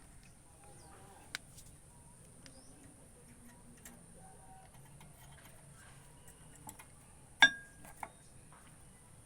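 Scattered light metal clicks, then one sharp metallic clink with a brief ring about seven seconds in, and a smaller clink just after.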